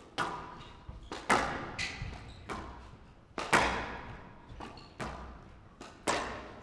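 Squash rally: the ball is struck back and forth by rackets and hits the walls, giving sharp hits about every half second to second, each ringing briefly in the court.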